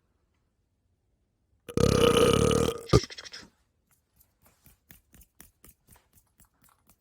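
A loud, drawn-out burp lasting about a second, followed by a sharp click and then a run of faint ticks, about three a second.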